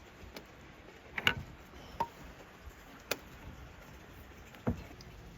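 A few separate sharp clicks and knocks, several seconds apart, the loudest about a second in, as tools and cables are handled.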